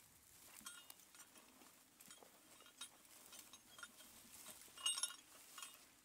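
Faint, irregular metallic clinking and jingling of chains and iron fittings on a work horse's harness and plow gear, with a louder cluster of clinks about five seconds in.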